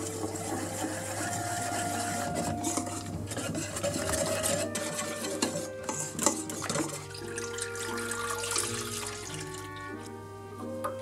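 Wire whisk stirring cornstarch and milk in a stainless steel bowl, scraping and clicking against the metal with liquid sloshing. Near the end milk pours into a pot. Light background music plays throughout.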